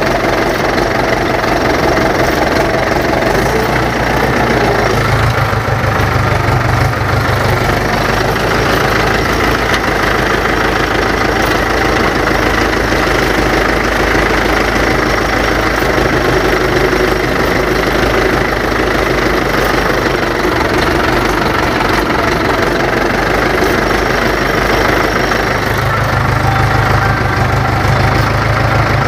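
Mahindra 475 tractor's diesel engine running steadily and loud, heard close to the engine bay while the tractor is driven through mud. A deeper drone swells a few seconds in and again near the end.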